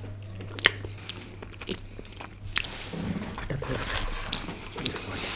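Close-miked eating of chocolate lava cake off a plastic spoon: wet mouth and chewing sounds, with a few sharp clicks in the first two seconds.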